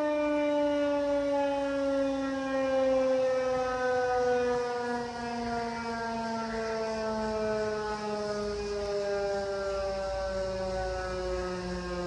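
Federal Signal outdoor warning sirens, a Thunderbolt 1000B and a 2001-130, winding down at the end of a test. Their tone falls slowly and steadily, and a low hum grows toward the end.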